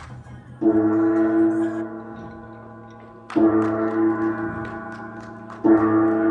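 Gong struck three times, about two and a half seconds apart, each stroke ringing on and slowly fading.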